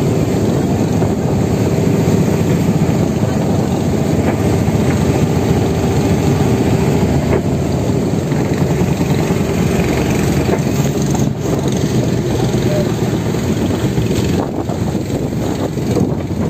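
An outrigger fishing boat's engine running steadily under way, with wind on the microphone and water rushing past the hull.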